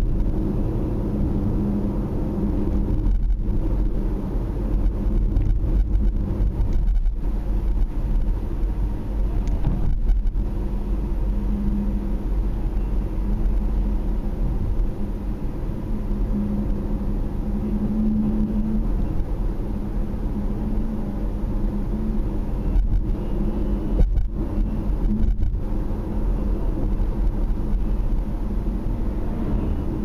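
A moving car's steady engine and road noise heard from inside the cabin: a low, even rumble with a faint hum.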